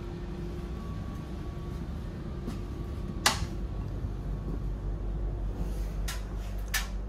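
Steady low hum of a Škoda RegioPanter electric train's ventilation and on-board equipment while it stands still, with a faint steady whine over it. A sharp click about three seconds in and two lighter clicks near the end.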